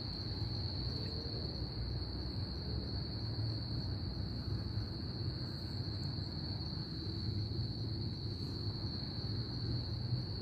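Crickets keeping up a steady, unbroken high-pitched trill, over a low rumble.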